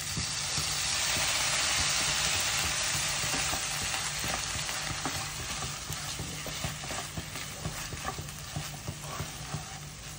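Fresh cream poured into a hot pan of masala chicken sizzles, loudest over the first few seconds and then slowly dying down. A wooden spatula stirs and scrapes the chicken around the pan throughout.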